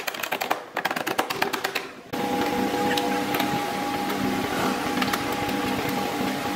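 Rapid hammer blows on a car body's sheet-metal sill panel for about two seconds. Then the sound changes suddenly to a steady power-tool sound with a pulsing beat and occasional clicks.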